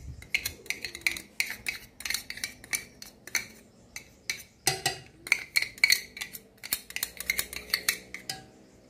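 A metal spoon clinking and scraping against a small jar and the rim of a pressure cooker pot as crushed garlic is knocked out into the pot. The quick, irregular taps come about three or four a second and stop shortly before the end.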